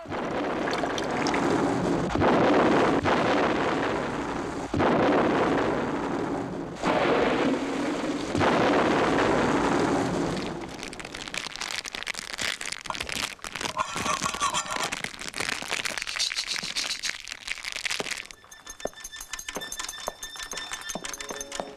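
Animated-cartoon sound effects: about ten seconds of loud, dense crackling noise, then quieter scattered clicks with a few short high tones, and from about three seconds before the end a steady buzzing chord.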